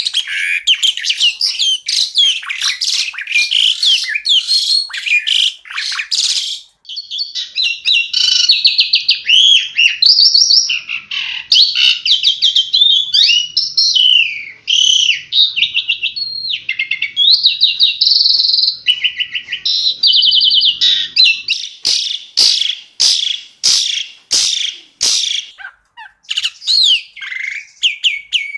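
Asian pied starling (jalak suren) singing a loud, varied song: dense chattering phrases, a brief break about seven seconds in, then fast trills and whistled notes, and in the last third a run of sharp, separate notes.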